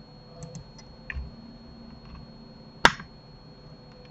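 Clicks from a computer mouse and keyboard: a few faint clicks in the first second or so, then one sharp, much louder click about three seconds in, over a faint steady electrical whine.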